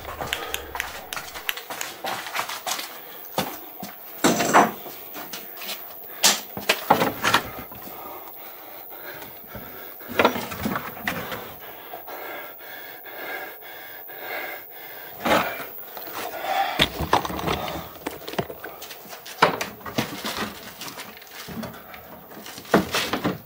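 Irregular knocks and bangs on wood: a plank cabin door and its metal latch being handled and pushed against the frame as someone struggles to shut it.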